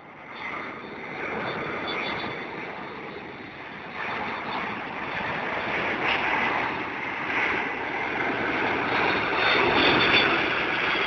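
Boeing 747-200 jetliner on approach to land, flying low overhead with its gear down. Its four jet engines make a rumble with a high whine on top that grows louder as it comes overhead, loudest near the end.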